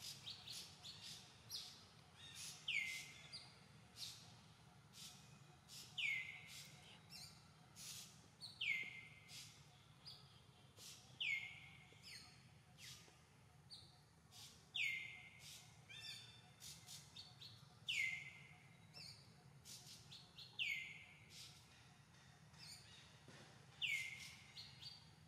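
Birds calling: one call repeats about every three seconds with a quick downward sweep, among many short, high chirps.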